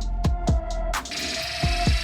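Background electronic music with a steady drum-machine beat and held synth tones.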